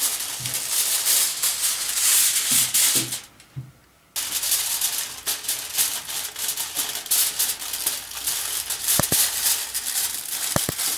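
Aluminium foil crinkling and rustling as it is pulled off the roll, then folded and crimped tightly around a joint of meat. The sound breaks off briefly about three seconds in, and a few sharp taps come near the end.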